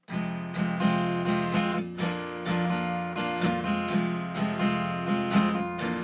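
Acoustic guitar strummed in a steady rhythm, the song's instrumental intro before the singing begins.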